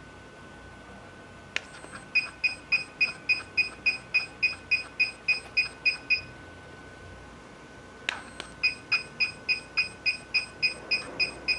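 HIFU face-lifting machine beeping in runs of short, high beeps, about three a second, as it fires ultrasound pulses through a 3.0 mm transducer handle. There are two runs, each starting just after a light click, with a pause of about two seconds between them.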